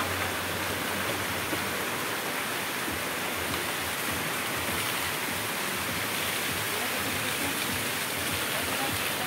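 Steady rush of splashing water: streams pouring from a water-park play structure into a shallow pool, with a person wading through the water.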